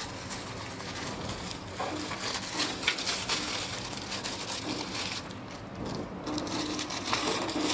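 Thin clear plastic bag crinkling and rustling irregularly as hands handle it and work it open.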